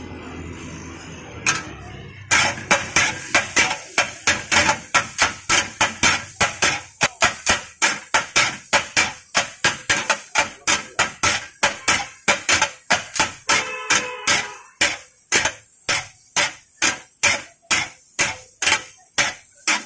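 Two metal spatulas chopping and striking food on a flat iron griddle (tawa), a steady metallic clanging about three strokes a second that sets in about two seconds in.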